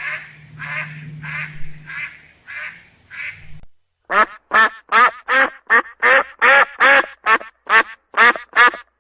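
Duck calls repeated at a slow, even pace over a low hum, then after a brief silence near the middle a different recording begins: a loud, rapid run of duck quacks, about three a second.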